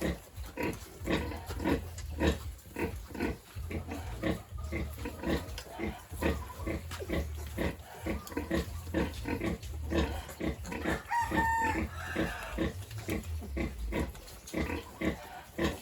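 Sow and piglets at nursing: rapid, even grunting, about three grunts a second, with one brief high squeal about eleven seconds in.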